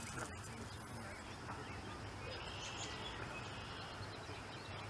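Faint outdoor ambience: a steady low hum with a few faint chirping animal calls, one longer buzzy call around the middle.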